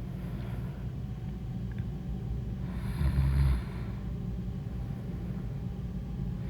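A woman snoring in her sleep: one louder, low snore about three seconds in, lasting under a second, over a steady low rumble.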